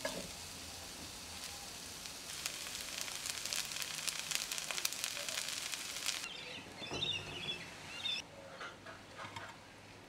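Rice vermicelli and long beans sizzling and crackling in a hot wok. The sizzle cuts off abruptly about six seconds in.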